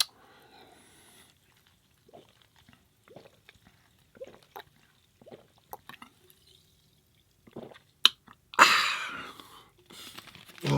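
A person drinking: faint, scattered small gulps and wet liquid sounds, then a louder, breathy rush of noise about eight and a half seconds in.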